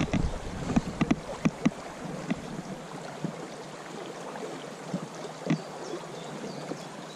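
River water running over a shallow, rippled riffle, with a few short ticks and splashes in the first two seconds and one more near the end.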